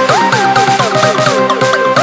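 Electronic dance music: a synth line sliding up and down between notes over a fast, steady beat.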